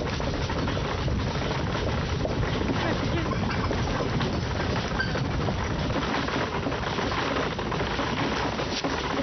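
Horse-drawn coach on the move: the steady rumble and rattle of the carriage rolling along a dirt lane, mixed with the horses' hooves.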